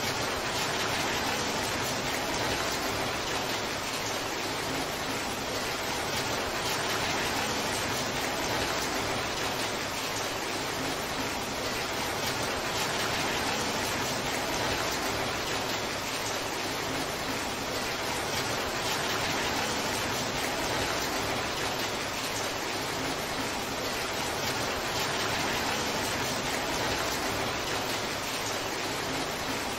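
Torrential downpour: heavy rain falling as a steady, even hiss without breaks.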